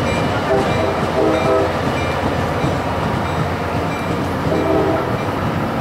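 Tri-Rail commuter train rolling away from the station platform: a steady rumble of the locomotive and cars on the track, with a faint high ding repeating under it.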